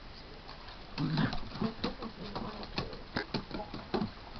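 Two papillon dogs play-fighting, their claws clicking and skittering on a hardwood floor in quick irregular taps, with a short low vocal sound about a second in.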